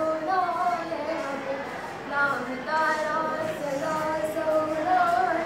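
Children singing a song in girls' voices, with long held notes that glide between pitches.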